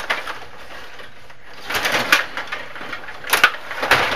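Stiga rod hockey table in play: plastic rods and players rattling and clacking, busier from a little under two seconds in, with a few sharp clacks of the puck near the end.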